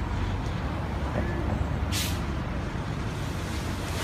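Steady low rumble of vehicle engines, with a short hiss about two seconds in.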